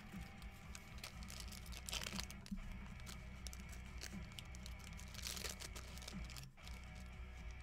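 Faint rustling and crinkling handling noise, with brief louder rustles about two seconds and five seconds in, over a steady low hum.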